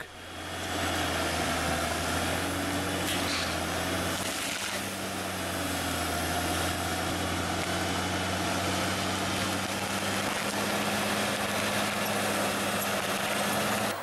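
Crawler bulldozer's diesel engine running at a steady pitch, a deep even drone, while the dozer pushes a tree over with a tree spear blade.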